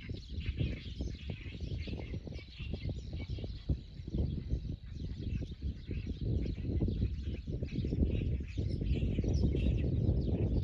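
Birds chirping over a strong, uneven low rumbling noise that grows louder towards the end.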